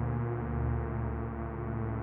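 Synthesized simulation of an ACA Hurricane 130 warning siren, built from sawtooth waves, holding a steady pitched tone with many overtones and a slight waver.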